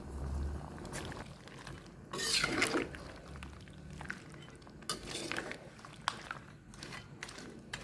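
Kitchen handling sounds while making rujak spice sauce: scattered light clinks and knocks of utensils on dishes, with a louder noisy burst about two seconds in.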